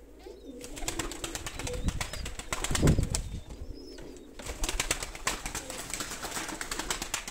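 Domestic pigeons in a loft: quick clattering wing-flaps and rustling, with a heavy thump about three seconds in, over soft low pigeon cooing.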